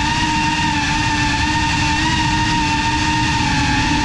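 GEPRC Cinelog35 ducted cinewhoop drone's brushless motors and propellers whining steadily at cruising throttle, the pitch wavering slightly, heard close up from the camera on the drone.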